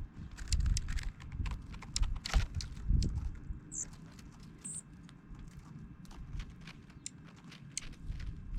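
Dark-eyed juncos: irregular sharp taps and clicks, with two brief high call notes about four and five seconds in. Low rumbling thumps come in the first three seconds.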